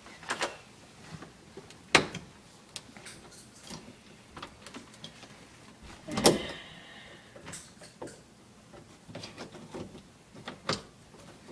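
Scattered metallic clicks and knocks of needle-nose pliers working at a doorknob's latch mechanism in a door, with two sharper knocks about two seconds and six seconds in, the second followed by a brief scrape.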